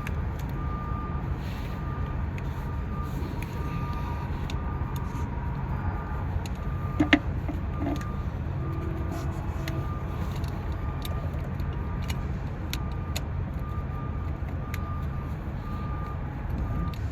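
Steady low rumble of a vehicle engine running nearby, with a faint short beep repeating about twice a second. Scattered metal clinks of hand tools on bolts, with a louder clank about 7 seconds in.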